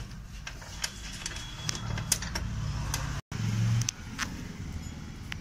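Scattered light metallic clicks and taps of hand tools and parts as a steering rack mounting clamp is fitted under a car, over a steady low hum. The sound cuts out for a moment about three seconds in, followed by a short low rumble of handling close to the microphone.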